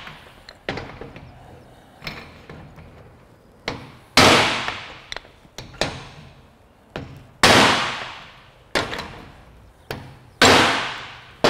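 Copper hammer striking the bearing caps of a newly fitted propshaft universal joint held in a vise. Three hard, ringing blows come about three seconds apart, with lighter taps between them. The blows shock the caps out to the ends of the yoke so the joint turns freely.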